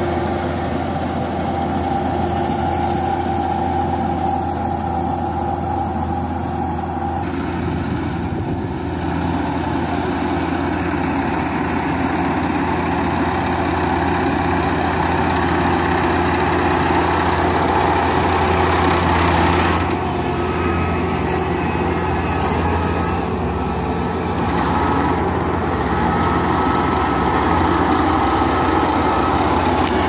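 Kubota PRO588i-G rice combine harvester running steadily as it cuts and takes in standing rice, a constant engine drone with mechanical clatter. The tone and mix shift abruptly twice, about a quarter of the way in and again past the middle.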